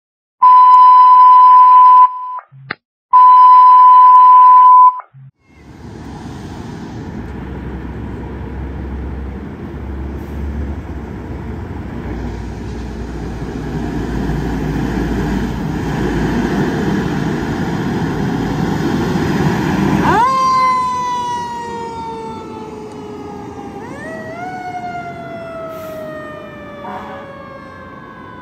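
Two long, loud electronic beeps, then a fire engine's engine building as it pulls out. About two-thirds of the way in, its siren rises sharply and then slowly falls in pitch, rising again briefly before falling away.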